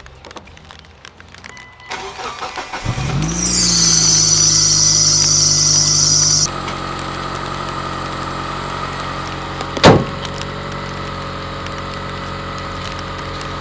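A 2003 Mitsubishi Eclipse 2.4L four-cylinder engine is cranked about two seconds in and catches at once. It runs at a fast idle with a high hiss for a few seconds, then drops suddenly to a steady idle. A single sharp knock, the loudest sound, comes about ten seconds in.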